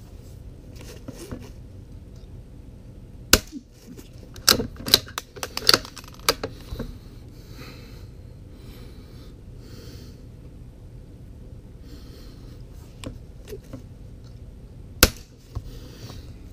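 Two suppressed shots of CCI Quiet-22 subsonic .22LR from a Savage MKII FV-SR bolt-action rifle fitted with a home-built Form 1 suppressor. Each shot is a single sharp crack, the first about three seconds in and the second about twelve seconds later. Soon after the first shot comes a quick run of metallic clicks as the bolt is worked to chamber the next round.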